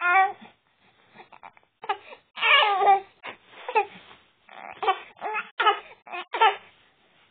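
Baby babbling in a string of high-pitched vocal sounds: a short one at the start, a longer drawn-out one about two and a half seconds in, then several short ones in quick succession.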